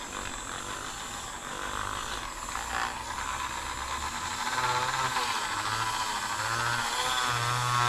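Dremel rotary tool running at high speed, spinning an RC shock shaft held in its collet while the shaft is polished in a cloth with metal polish. The motor's pitch wavers and pulses in the second half.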